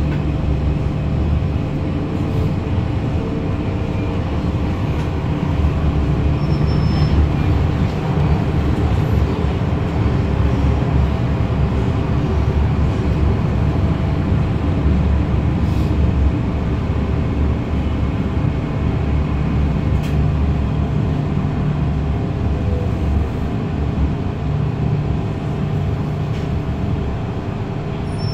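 MTR M-Train electric multiple unit running along the line: a continuous rumble of wheels on rails with a steady low traction-motor hum and a thin steady whine.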